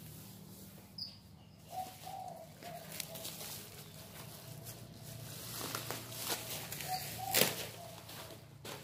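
Faint background of caged spotted doves: a low cooing with several brief flutters of wings.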